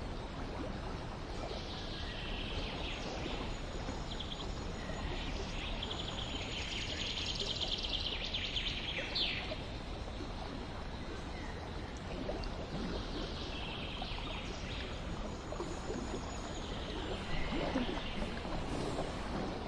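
Outdoor garden ambience: small birds chirping and trilling in several bouts over a steady background hiss.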